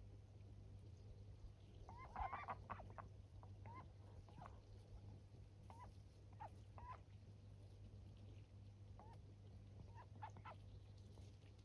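Indian runner ducks giving short, faint quacking calls: a quick cluster about two seconds in, then single calls scattered through the rest, over a steady low hum.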